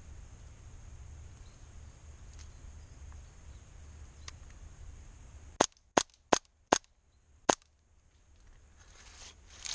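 Airsoft replica firing five sharp single shots in quick succession about halfway through, the last after a slightly longer gap.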